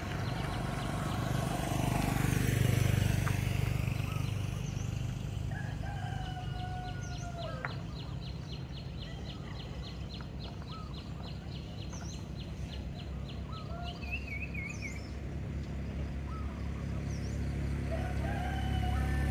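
A rooster crows twice, once about six seconds in and again near the end. A car drives past in the first few seconds. In the middle a fast run of high ticks and a short chirp sound.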